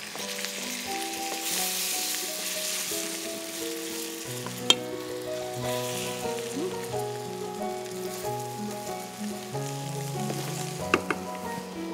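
Mushrooms frying in a pan, a steady sizzle as they are stirred with a spatula, with a sharp click about halfway through and another near the end.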